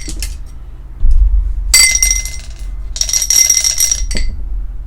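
Two bursts of bright metallic jingling with a ringing tone, each about a second long, over a low hum.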